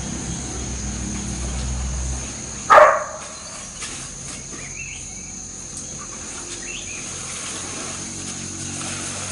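Outdoor farm ambience: a steady high insect-like drone with faint bird chirps, and one loud short animal call about three seconds in.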